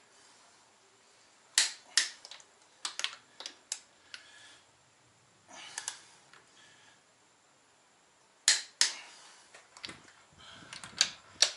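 Torque wrench on the ARP 2000 head studs of an RB25DET cylinder head, giving sharp metallic clicks in small groups every second or two as the studs are pulled up to their final 90 ft-lb stage.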